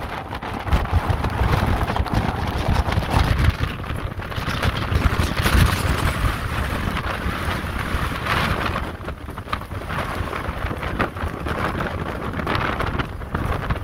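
Strong wind of a severe storm gusting and buffeting the microphone, rising and falling in uneven gusts.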